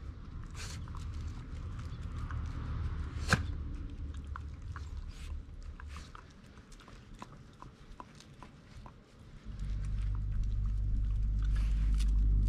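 Shiba Inu dogs' claws clicking and tapping on asphalt as they move around, with one sharp click about three seconds in. From about nine and a half seconds in, a steady low rumble comes in and becomes the loudest sound.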